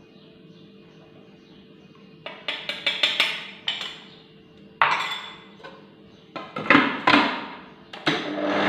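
A metal spoon clinking and scraping in a ceramic bowl, with several knocks of bowls set down on the stone worktop. About eight seconds in, the Kenwood food processor's motor starts and runs steadily, mixing the shortbread dough.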